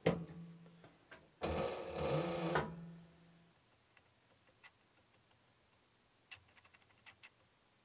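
Aurora A-801 leather skiving machine: a click at the start, then the machine running with a hum. For about a second the knife and feed roller skive a leather strip fed through at an angle set by the tilted presser foot. A few faint handling clicks come near the end.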